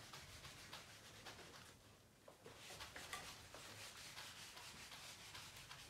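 Near silence with faint scratching and rubbing of handwriting, a pen moving over the writing surface in short strokes.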